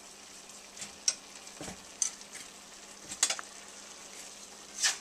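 Egg noodles being stirred and tossed into a hot pan of chicken stir fry: a steady light sizzle, with about six sharp scrapes and clacks of the utensil against the pan, the loudest near the end.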